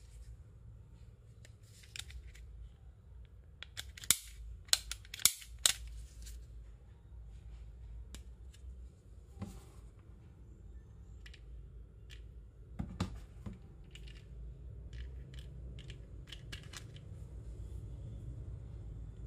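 Plastic clicks and clacks of a cheap toy pistol being handled and worked, with four sharp clicks in quick succession about four seconds in, another cluster just before the middle of the second half, and lighter ticks in between.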